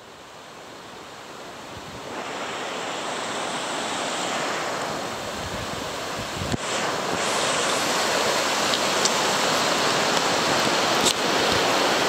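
Shallow mountain river rushing over a stony bed: a steady hiss of running water that fades up over the first few seconds and then holds.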